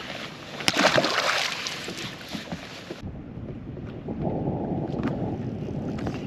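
Wind buffeting the microphone over open water, with a sharp click about two-thirds of a second in. The sound cuts abruptly about three seconds in to a lower, steadier rush of wind and water.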